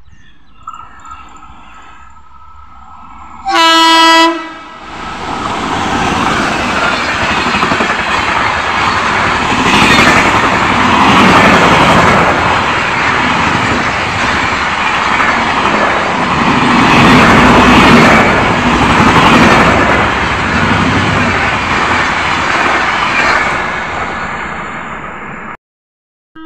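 Horn of a WAP-7 electric locomotive sounds once, a loud blast of about a second, some three and a half seconds in. Then the Himgiri Express passes at about 123 km/h, a loud rush of coaches and wheels on rail lasting some twenty seconds, which cuts off abruptly near the end.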